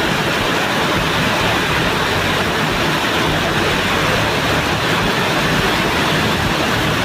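Heavy rain pouring down in wind, a loud, steady hiss that does not let up.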